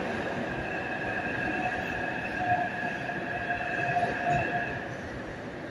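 Taipei Metro C371 train running in a tunnel: a steady rumble with a high whine on several pitches, which fades out near the end, leaving the rumble quieter.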